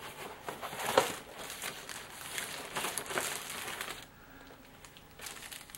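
Clear plastic packaging bag crinkling as bagged plastic model-kit parts are handled, with several louder rustles, dying away about four seconds in.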